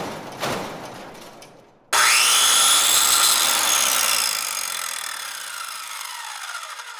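Strokes on wood at about two a second, fading out over the first second or two. About two seconds in, a power tool's motor starts abruptly, and its whine then falls slowly in pitch as it winds down.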